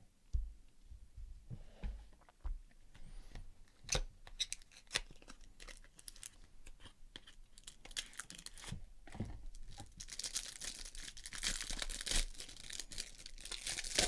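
Hands tearing open a small cardboard trading-card box, with scattered clicks and scrapes of card stock. About ten seconds in, a steady crinkling of clear plastic wrapping around a card takes over.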